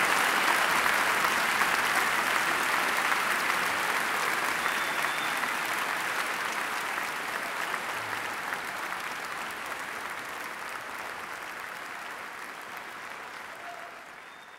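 Concert hall audience applauding, the clapping steadily growing fainter.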